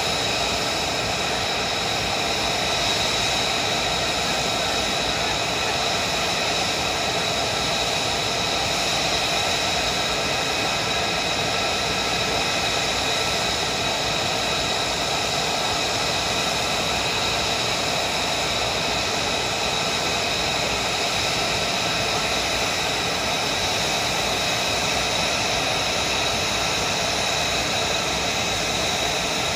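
F-35A Lightning II's F135 turbofan idling: a steady rushing hiss with a high whine held at one pitch.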